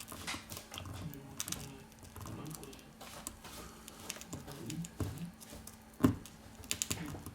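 Scattered light clicks and taps of small tools handling the tablet, with a sharper knock about six seconds in, over a faint steady hum.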